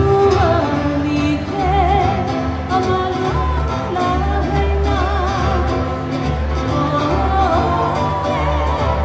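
Live Hawaiian band music: singing with a wavering vibrato over strummed guitars and ukuleles and a repeating bass line.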